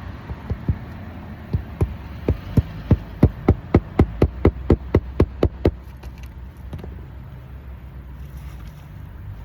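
Hand hammer nailing an asphalt roof shingle back down: about twenty sharp strikes, a few scattered ones and then a quickening run of about four a second that stops about six seconds in.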